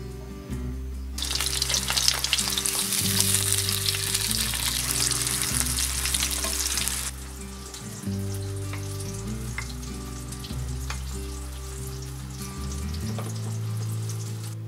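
Food frying in a pan: a loud sizzle with dense crackling starts suddenly about a second in, then drops to a quieter crackle about seven seconds in. Soft background music plays underneath.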